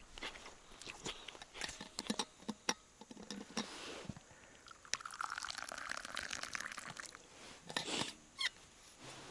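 Liquid poured into a cup for about two seconds, the pitch rising as it fills, after a run of small clicks and knocks of crockery and food handling.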